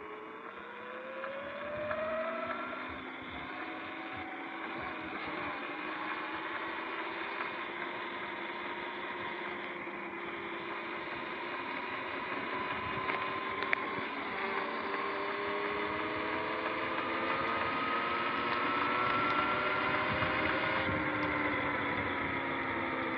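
Sur-Ron X electric dirt bike's motor and drivetrain whining as it rides, rising in pitch as it accelerates in the first couple of seconds, climbing slowly and then dropping near the end as it slows, over a steady hiss of tyres on wet road and wind.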